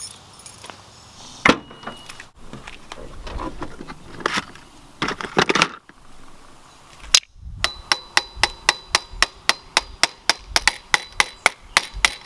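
Hammer tapping on metal at a vintage Schwinn road bike's handlebar stem: a few scattered knocks, then in the second half a fast, even run of about twenty sharp taps, about five a second.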